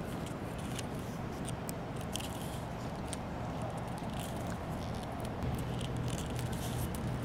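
Leather lace being wound around a PVC pipe bow handle: faint rubbing and small scattered clicks of lace and fingers on the pipe, over a steady low hum that grows slightly about five seconds in.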